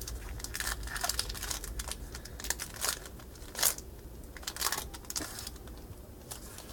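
Plastic wrapper of a baseball card pack crinkling as it is handled, with cards rustling, in short irregular bursts; the loudest crinkle comes a little past halfway.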